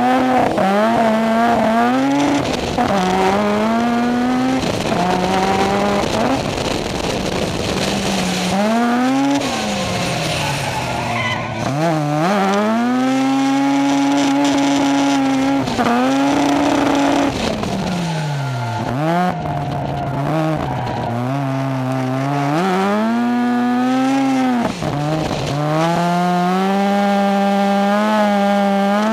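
Drift car engines revving hard, their pitch climbing and falling off again and again as the throttle is worked, with tire squeal from cars sliding sideways.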